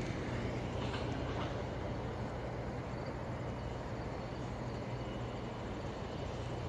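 Steady low engine drone with a constant hum.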